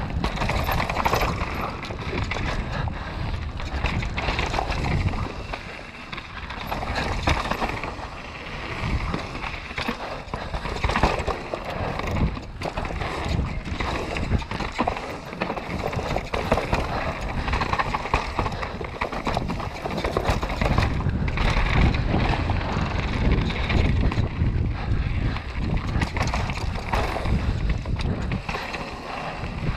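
Downhill mountain bike riding fast down a dirt forest trail: tyres rolling over loose dirt with a continuous rumble, and the bike clattering with frequent short knocks as it hits bumps.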